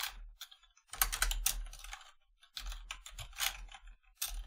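Typing on a computer keyboard: quick runs of keystrokes in three or four bursts with short pauses between them.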